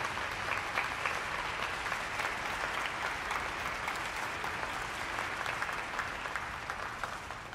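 Audience applause: many people clapping together, dying away near the end.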